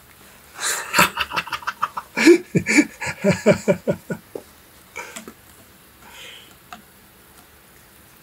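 A quick run of short voiced sounds, several a second, for about three and a half seconds, mixed with scuffing and rustling as a hand plays with a cat on carpet; a few fainter scuffs follow.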